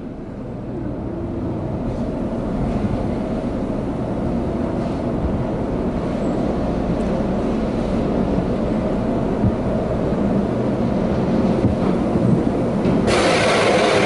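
Steady low rumble of car wash tunnel machinery heard from inside the car's cabin, growing slowly louder. Near the end a louder rushing hiss sets in, like water spray starting up.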